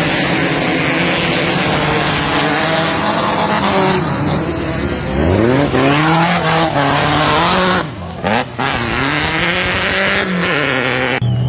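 Off-road vehicle engine running hard under a heavy load of noise, revving up with a rising pitch about five seconds in and again about nine seconds in, with a short drop in between.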